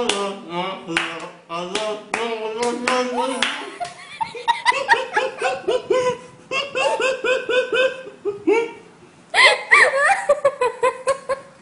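People laughing hard in rapid repeated bursts, with hand claps mixed in, loudest near the end.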